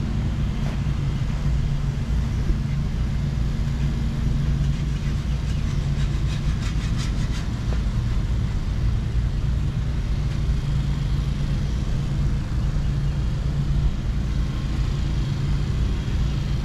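A steady low engine drone, an engine running at an even, unchanging speed. Faint rapid ticking comes in for a couple of seconds about six seconds in.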